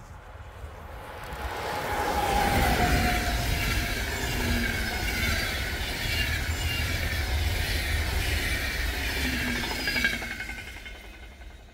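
Electric-locomotive-hauled passenger train passing close at speed. It builds up over the first two seconds, with a whine from the locomotive falling in pitch as it goes by. Then comes a steady rumble and hiss of wheels on rail as the coaches pass, and it falls off sharply near the end as the last coach clears.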